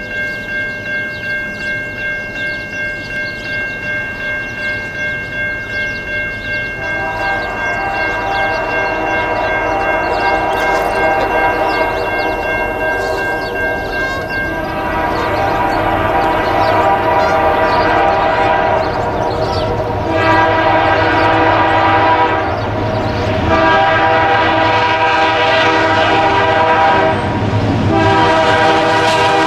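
A grade-crossing warning bell rings steadily, pulsing about twice a second. From about seven seconds in, the locomotive air horn of an approaching BNSF-led freight train sounds a run of long chord blasts, getting louder as the train nears the crossing, with short breaks between the last few blasts.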